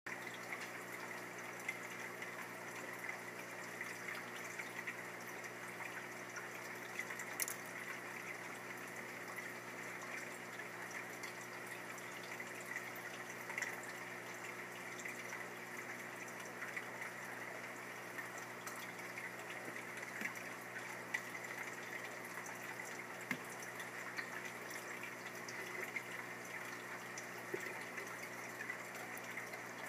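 Faint steady trickle of water with a low hum and occasional small drips or clicks.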